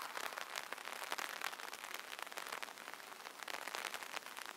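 Rain falling steadily, a dense patter of small drop ticks, quiet.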